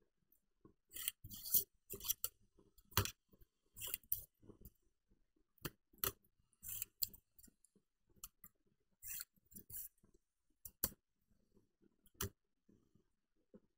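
Pencil scratching ruled lines on paper along the edge of a laptop keyboard used as a straightedge, with the paper sliding and the keyboard clicking and knocking as it is shifted. The sounds come as irregular short scrapes and clicks.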